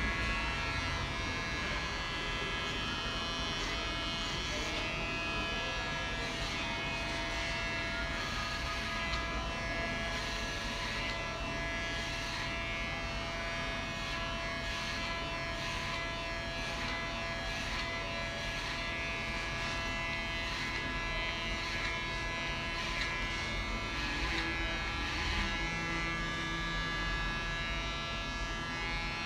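Electric hair clippers running steadily with a constant hum as they trim the sides and back of a man's short hair.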